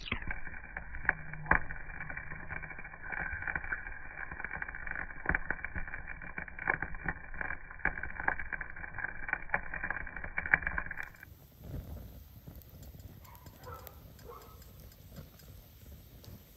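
Wood fire crackling in a metal fire bowl, with irregular sharp pops and snaps. It sounds muffled for about the first eleven seconds, then becomes clearer and quieter, still crackling.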